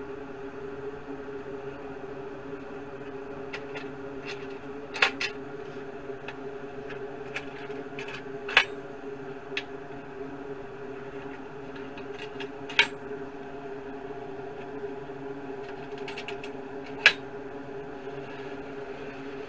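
Metal hold-down clamps on a CNC machine's bed being loosened and moved: a few sharp knocks spread several seconds apart, with lighter ticks between. A steady machine hum runs underneath.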